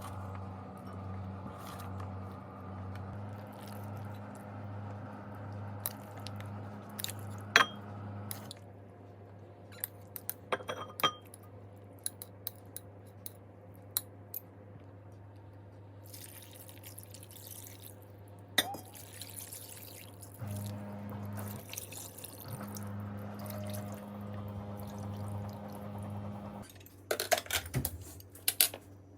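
Kitchen work: scattered clinks and knocks of dishes or glassware with some liquid sounds, over a low pulsing hum that stops partway through and later starts again. A cluster of knocks comes near the end.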